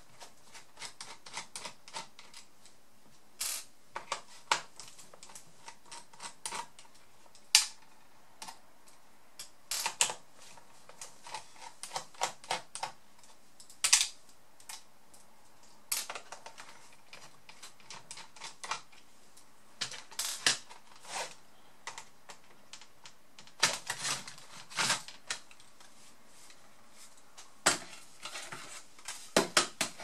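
Irregular small clicks, taps and clatter of a laptop's plastic case being taken apart with a small screwdriver: screws being worked, covers and parts handled and set down, with several quick flurries of clicks.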